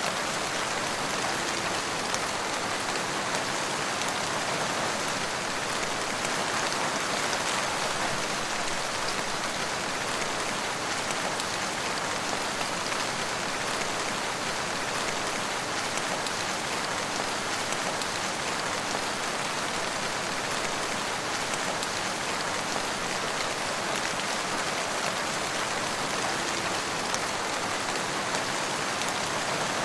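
Steady rain falling, with a dense patter of drops on hard surfaces and no break or change.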